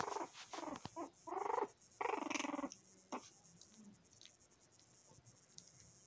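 Three-week-old puppies whining and yipping as they play-fight, with about six short calls packed into the first three seconds before it goes quieter.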